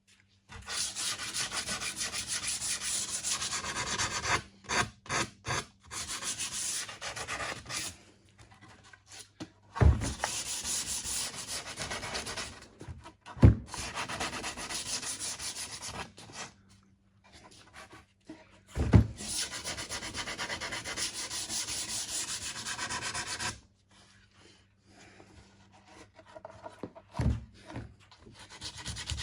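Hand sanding of painted wood with 150-grit sandpaper, sanding through the paint to give a worn, distressed look. Fast scratchy strokes come in spells of a few seconds with pauses between, and three sharp knocks are heard along the way.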